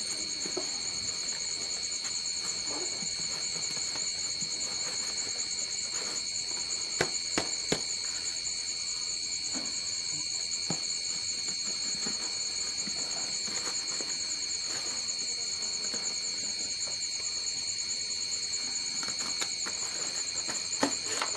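Crickets chirring steadily in a continuous high-pitched trill. A few light clicks come about seven to eight seconds in.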